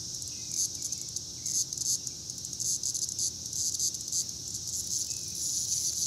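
A chorus of cicadas: a steady, high-pitched buzzing drone.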